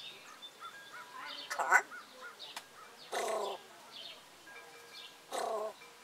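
African grey parrot giving a series of short calls and chirps, with louder calls about a second and a half in, just after three seconds, and near the end.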